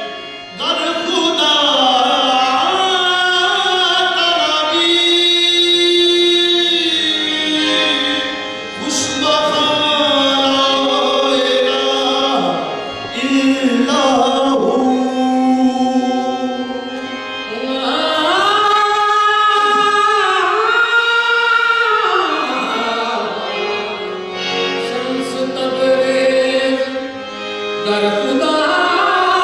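Qawwali music: male voices singing long, gliding, held phrases over instrumental accompaniment.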